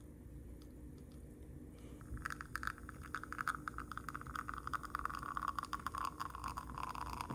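Espresso from a Flair PRO 2 manual lever espresso maker pouring into a glass cup, starting about two seconds in. It is a thin trickling tone full of fine crackles that slowly falls in pitch, then cuts off suddenly at the end.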